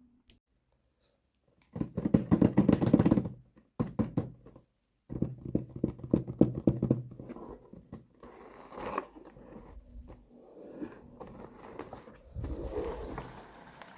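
Small plastic toy pieces being handled, with bursts of rapid rattling and clicking about two, four and five seconds in, then softer scraping and tapping.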